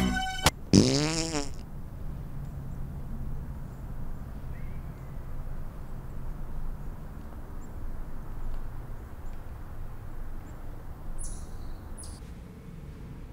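A loud fart: one pitched, wavering blurt about a second in, followed by a low steady drone that lingers for several seconds.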